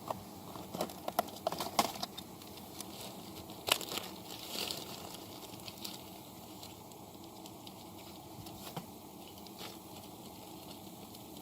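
Handling noises: a quick run of sharp clicks and small knocks, a louder knock and a brief rustle a few seconds in, then a faint steady hiss with an occasional light tick.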